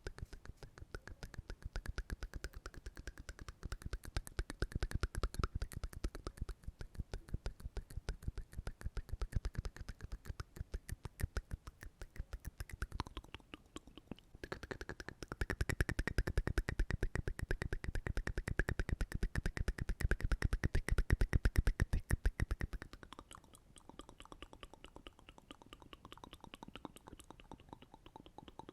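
ASMR mouth sounds close to the microphone: a fast, even stream of wet mouth clicks and pops, many a second. They grow louder a little past halfway, then drop back softer near the end.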